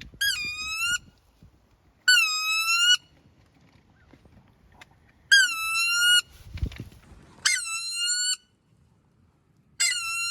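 Drawn-out, goose-like honking calls, five of them about two to three seconds apart. Each is a high, reedy note that dips at the start and then rises slightly in pitch. There is a brief low thump midway.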